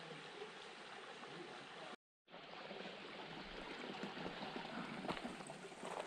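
Shallow rocky stream running steadily over stones. The sound drops out for a moment about two seconds in, and a few light knocks come near the end.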